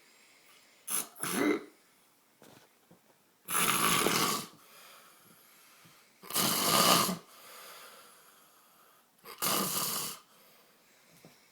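A sleeping man snoring loudly: three long snores about three seconds apart, each lasting about a second, after two shorter snores about a second in.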